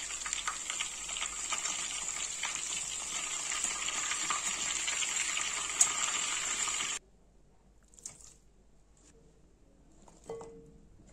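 Breaded chicken donuts deep-frying in a pan of hot oil: a steady sizzle and crackle, with one sharp tap of a metal utensil a little before six seconds in. The sizzle cuts off suddenly at about seven seconds, leaving faint clicks and a light glass clink as sliced onion is tipped into a glass bowl near the end.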